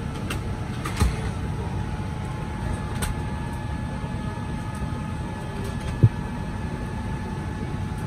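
Steady airliner cabin noise inside a Boeing 787-9, with a faint steady whine over it. A soft thump comes about a second in and a sharper, louder thump about six seconds in.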